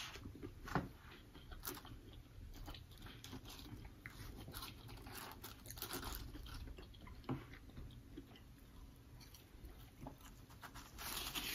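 Faint close-up chewing and crunching of two people eating fried catfish and fries, with scattered small clicks and a couple of sharper ones.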